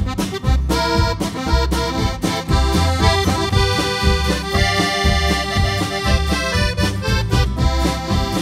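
Piano accordion playing an instrumental break in a country-blues tune, its melody over a band accompaniment with a steady, pulsing bass line.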